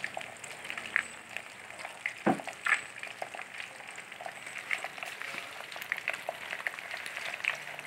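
Food sizzling in a wok, a steady crackling hiss with many small pops and one louder knock about two seconds in.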